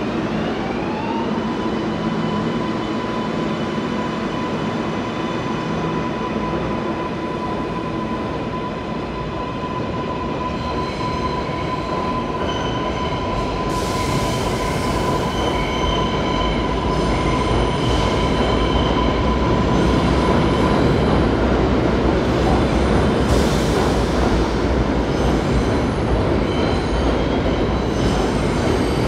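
An R142A subway train accelerating out of a station. Its motor whine rises in pitch over the first second or so and then holds a steady tone, under a constant rumble of wheels on rail. As the cars pass, high wheel squeals come and go and the sound grows louder in the second half.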